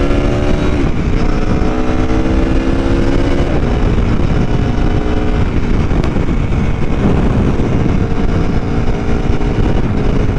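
Aprilia Tuono V4 1100 Factory's V4 engine accelerating through the gears, its pitch climbing and dropping sharply at clutchless quick-shifter upshifts about a second in and again about three and a half seconds in. After that it runs on more steadily under heavy wind and road rush.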